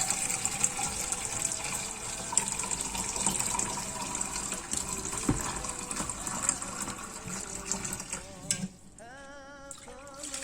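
Warm water pouring steadily into a bowl of flour being mixed into bread dough, easing off near the end.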